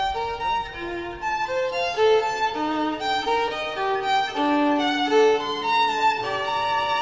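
Solo violin music: slow bowed melody of held notes.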